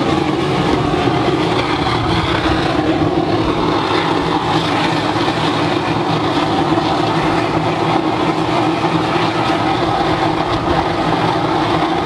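Waste-oil burner firing into a steel drum furnace: a loud, steady roar like a jet engine on takeoff, with a low hum running through it.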